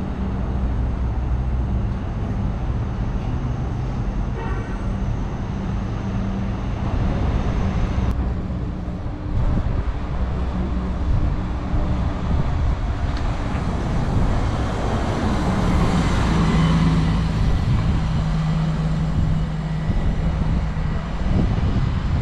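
City street traffic: motor vehicles driving past with a continuous low hum and road noise. One passes close about two-thirds of the way through, the loudest moment, with a steady humming tone.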